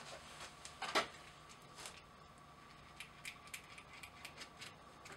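Faint clicks and light taps of a small freshly tapped metal fitting being handled and cleaned out by hand, with one louder knock about a second in and a quick run of small clicks later on.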